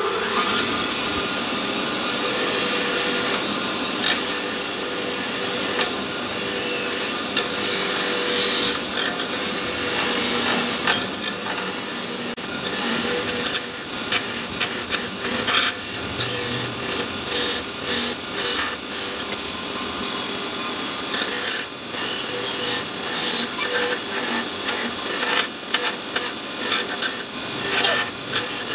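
A power tool running steadily while it scrapes and rasps against a part, with scattered clicks from the contact. This is typical of wire-brushing or grinding rust and grime off metal.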